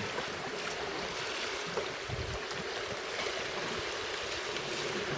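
Steady noise of wind and the sea washing against the breakwater, with a brief low thump about two seconds in.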